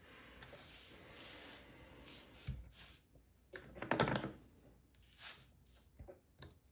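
Tools being shifted about on a workbench: a soft rubbing and sliding, a knock about two and a half seconds in, a louder clatter about four seconds in, then a few small clicks.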